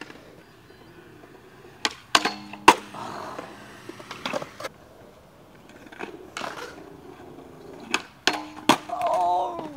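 Skateboard wheels rolling on concrete, with sharp clacks of the board popping and landing several times. Near the end a skateboard hits a steel handrail and the rail gives a steady metallic ringing.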